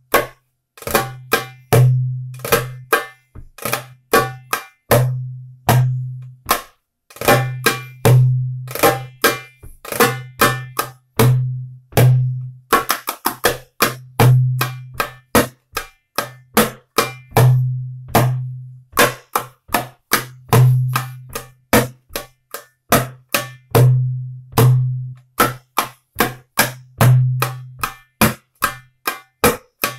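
Darbuka (metal goblet drum) played by hand in a solo: deep doum strokes about once a second, with crisp tek and ka strokes packed between them, and a fast flurry of strokes about thirteen seconds in.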